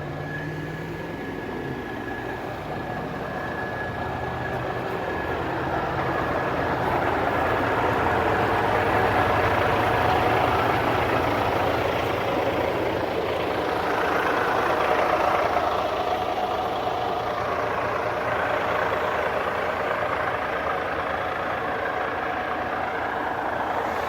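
Heavy diesel engine running, growing louder over the first several seconds and then holding steady.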